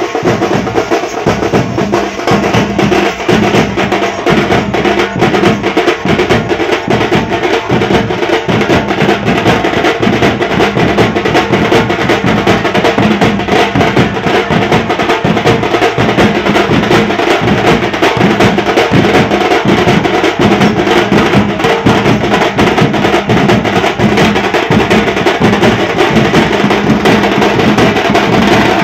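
A band of several side-slung drums beaten with sticks, playing a loud, fast, unbroken rhythm of dense strokes.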